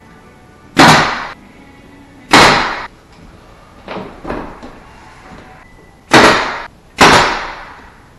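Four loud sharp bangs, each trailing off over about half a second, with two fainter knocks in between.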